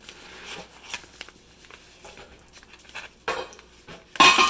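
Kraft-paper padded mailer being pulled and torn open by hand, with paper rustling and a few soft knocks, then a loud metallic clatter with a short ring near the end.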